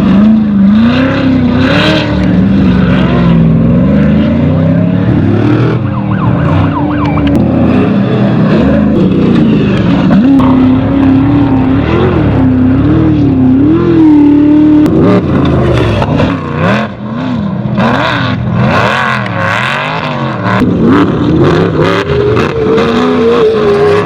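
Off-road race vehicle engines running hard, more than one at once, their pitch rising and falling again and again as they rev and shift. Near the end one engine climbs steadily in pitch.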